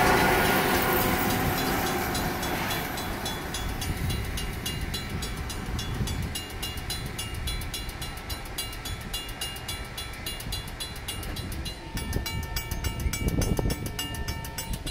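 Safetran mechanical railroad-crossing bell ringing in fast, even strokes throughout. Over the first few seconds the engine and wheels of a passing Harsco track maintenance machine fade away under it. About twelve seconds in, the bell's ringing tone comes through clearer.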